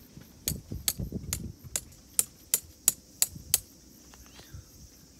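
A hammer driving a tent peg into the ground: about nine sharp strikes in quick succession, roughly three a second, each with a duller thud under the first few.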